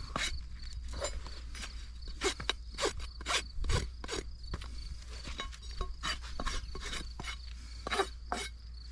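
Farrier's rasp being stroked back and forth across a horse's hind hoof wall, a rapid run of uneven scraping strokes about two a second while the trim is finished off.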